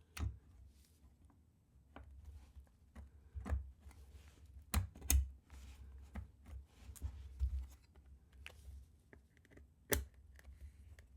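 Scattered clicks and knocks of keyboard case parts being handled and fitted together, the top half of the QK80 MK2 case being set back onto its bottom half. The sharpest clicks come about five and ten seconds in, over low handling rumble.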